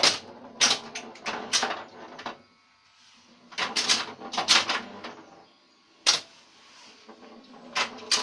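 1970 Bally See Saw electromechanical pinball machine in play: bursts of sharp mechanical clacks from its bumpers, relays and score reels, coming in several quick clusters with short quiet gaps between them.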